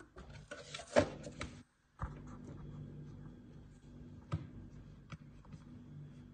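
Handling noise on a lab bench: a short flurry of clicks and rustling about a second in, then a few sharp single clicks, over a steady low hum. The sound drops out for a moment just before two seconds.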